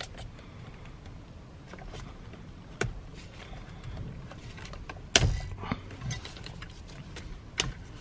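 A few sharp plastic clicks and knocks as the airbag wiring is unclipped from its plastic channel in a Kia Optima steering wheel hub. The loudest click comes about five seconds in.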